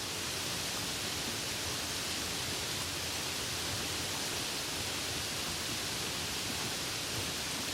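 Soft steady rain falling, an even hiss with no single drops standing out.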